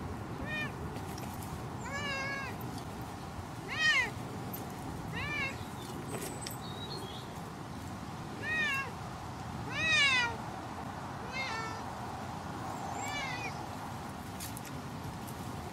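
An F2 Savannah cat meowing repeatedly: about eight short meows a second or two apart, each rising then falling in pitch, two of them louder near the middle.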